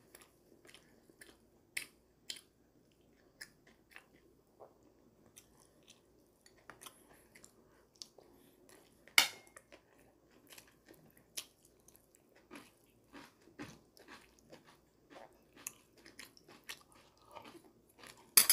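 A man chewing food close to the microphone: scattered wet mouth clicks and smacks, with one sharper click about nine seconds in.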